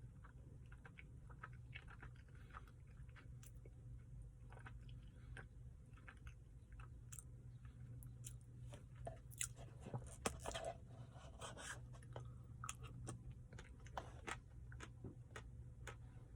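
Faint close-up chewing and crunching of a mouthful of Royal Ultimate Choco Brownie Blizzard, soft ice cream with crunchy chocolate and brownie pieces. There is a louder run of crunches about ten seconds in, over a low steady hum.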